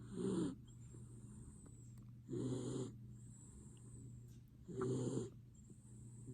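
Miniature dachshund snoring: three loud snores about two and a half seconds apart, with a faint high whistle of breath between them.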